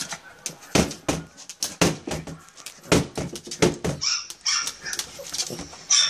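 Small terrier-type dog giving short barks and whimpers as it mouths and paws at an open laptop, with a string of sharp knocks from its teeth and paws on the screen and keys.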